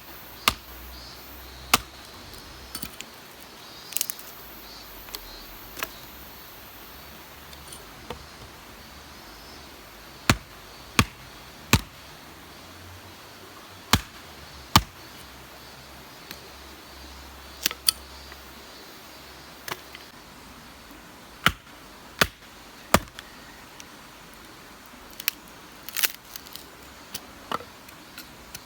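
Sharp knocks and clicks at irregular intervals, some coming in runs of two or three about a second apart, over a faint steady background.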